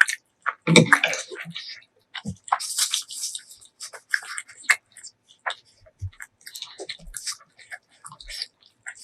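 Close-miked eating: chewing with a quick, irregular run of short wet clicks and crackles, loudest about a second in and again around three seconds.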